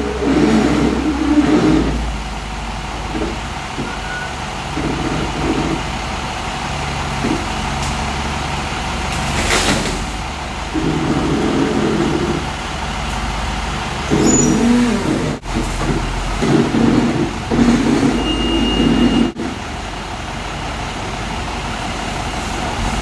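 Case wheel loader's diesel engine running, surging up and down repeatedly as the loader pushes and lifts into fallen tree branches.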